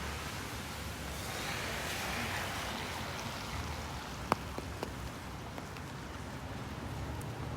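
Steady rain falling, an even hiss, with a brief swell about two seconds in and a sharp click a little past four seconds.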